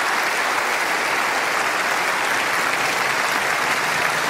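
Large audience applauding steadily at the end of a speech.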